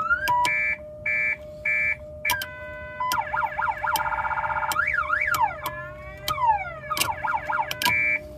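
Aftermarket electronic siren box on a car, played through its loudspeaker and cycling through siren patterns: a rising wail, a run of short beeps, a fast warble, quick up-and-down yelps and falling sweeps.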